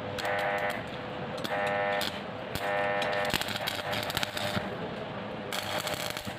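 A vehicle horn honks three times in short blasts, followed by scattered sharp metallic clicks and a brief harsh hiss near the end.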